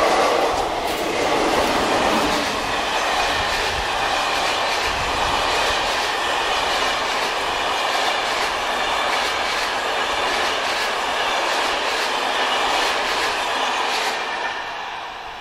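Passenger train passing close by: steel wheels clattering over rail joints in a steady run of clicks over a rushing rumble, which fades away near the end.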